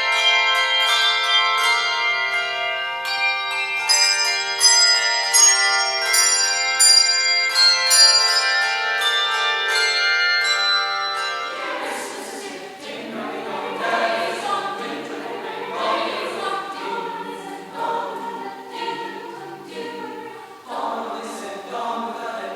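Bells ringing a melody, each note struck and left to ring. About halfway through they give way to a choir singing.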